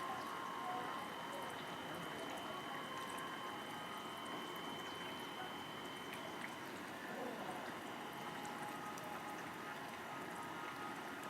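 Steady trickling or running water, with thin high steady tones over it, one held for several seconds.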